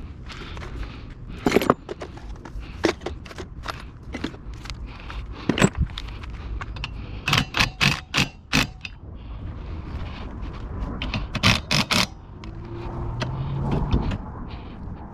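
Hand work on car parts: scattered sharp clicks and knocks with scraping, including quick runs of three or four clicks.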